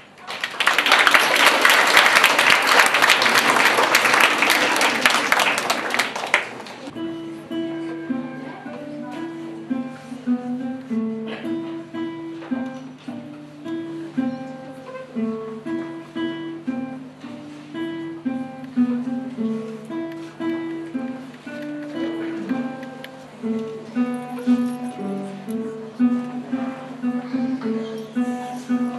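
Audience clapping for about six seconds, then a classical guitar played solo: single plucked notes in a moving line.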